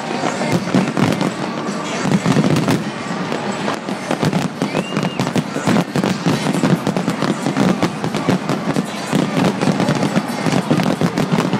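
Aerial fireworks display at full intensity: many shells bursting in quick succession with crackling, the bangs overlapping into a continuous barrage with no pause.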